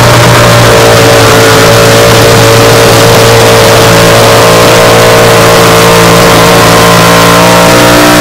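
Chevrolet square-body pickup truck's engine at high revs under full load while dragging a truck-pulling weight-transfer sled. It holds a nearly steady pitch and is very loud.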